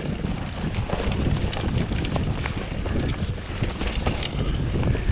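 A full-suspension mountain bike rolling over a rocky dirt trail: a steady rumble of wind on the microphone and tyres on the ground, with scattered clicks and rattles from stones and the bike.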